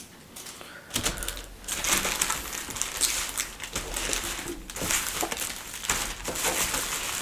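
Rapid clicking and crackling of plastic ink bottles and printer parts being handled while the ink tanks are filled, starting about a second in.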